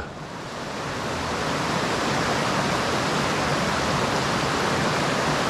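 Rushing river water: a steady, even hiss that swells over the first second or so and then holds.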